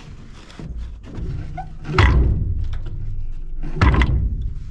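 Heavy metal thunks and knocks from the steel boom pipe as its unbolted flanged joint is worked to split it apart, the loudest about two seconds in and again near four seconds.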